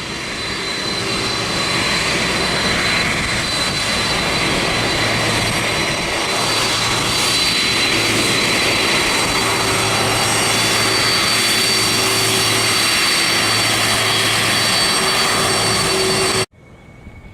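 Boeing 747-400F freighter's jet engines running close by while it taxis: a loud, steady rush with a high whine over it. The sound cuts off abruptly about a second before the end.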